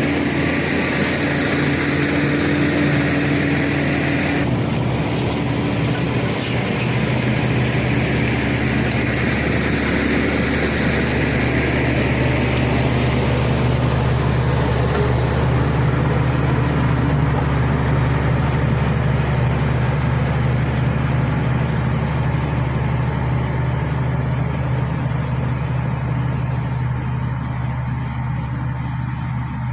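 Shantui SD16 crawler bulldozer's diesel engine running steadily while the dozer pushes clay. Its pitch shifts about four seconds in, and the higher hiss fades away in the second half.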